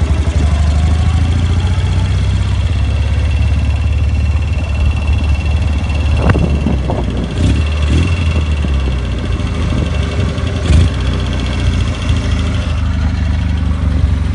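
The side-valve flat-twin engine of a freshly rebuilt K-750 motorcycle running steadily as it is ridden, with a few short sharp knocks about six seconds in and once more near eleven seconds.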